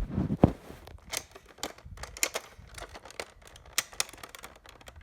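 Irregular plastic clicks, knocks and rattles of a Nerf blaster being handled and loaded, with a louder knock about half a second in.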